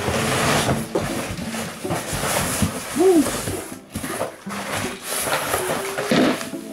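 Cardboard box and plastic packaging rustling and crinkling as chair parts are handled and pulled out of the box, with scattered knocks of parts against the cardboard.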